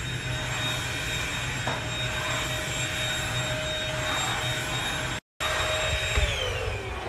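Corded vacuum cleaner running with a steady whine, then winding down with a falling pitch about six seconds in as it is unplugged at the wall.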